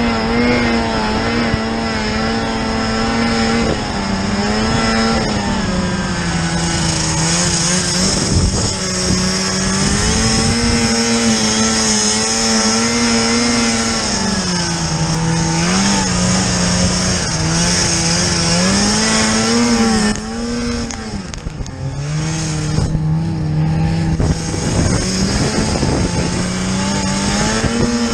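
Snowmobile engine running hard, its pitch rising and falling with the throttle. About two-thirds through, the throttle eases off and the pitch drops lower for a few seconds, then climbs again.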